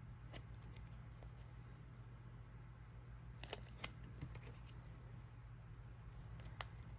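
Faint, scattered clicks and rustles of plastic-sleeved photocards being handled, a few ticks close together about three and a half to four and a half seconds in, over a steady low electrical hum.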